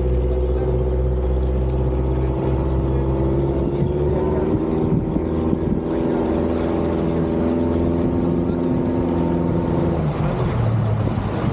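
Yamaha outboard motor on an inflatable boat running steadily as the boat gets under way. Rushing water and wind noise build in the last few seconds as the boat picks up speed.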